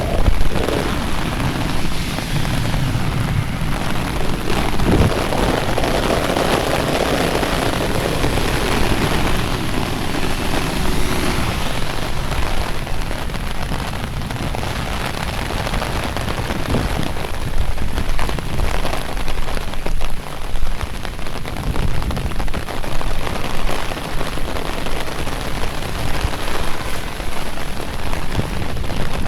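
Rain falling steadily and spattering on surfaces, with a deeper rumble underneath during the first half.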